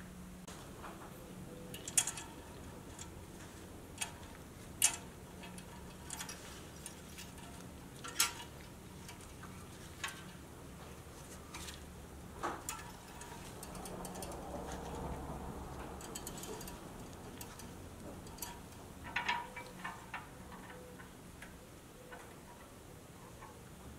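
Scattered sharp clicks and taps of small metal toy parts being handled and fitted: the pressed-steel tow truck's boom, winch cable and hook chain going on. A short run of clicks comes near the end, and a low steady hum sits underneath.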